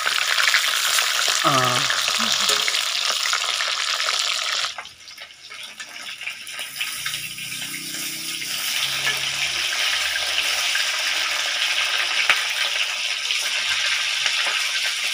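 Fish pieces frying in hot mustard oil in a steel kadai: a steady sizzle, with a metal spatula scraping and turning the pieces. The sizzle drops away briefly about five seconds in, then comes back.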